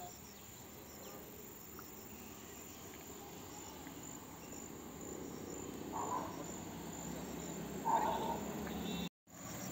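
Insects chirring steadily and faintly at a high pitch over a low outdoor rumble. Two brief louder sounds break in about six and eight seconds in, and everything cuts out for a moment near the end.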